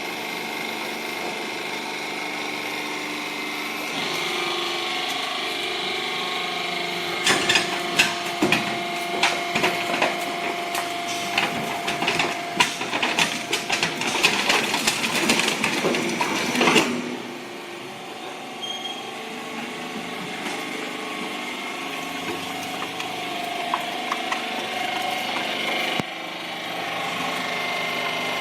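Hydraulic scrap metal baler running with a steady pump hum. From about seven seconds in to about seventeen, scrap metal crunches and clanks loudly and irregularly as it is compressed, then only the quieter hum carries on.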